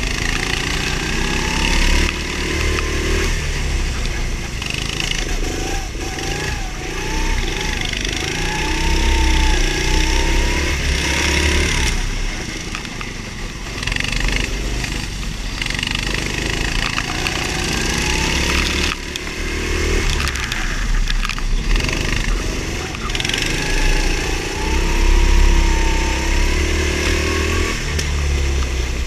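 Go-kart engine running at racing load, its pitch rising and falling over and over as the kart accelerates and lifts off through the corners, over a heavy low rumble and a steady hiss.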